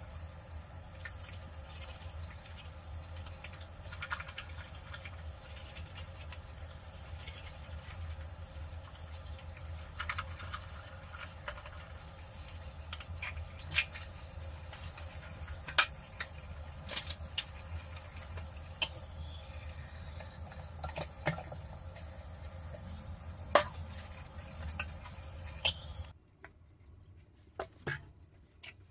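Scrubbing and swishing water inside a toilet bowl, over a steady low hum, with scattered sharp knocks against the porcelain. It all cuts off suddenly near the end.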